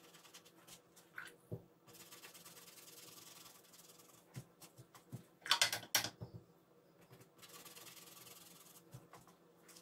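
A paintbrush rubbing and dabbing on a watercolour palette, with small scattered clicks. About halfway through comes a short, louder burst of clicking and rustling as the brush is rinsed in the water pot.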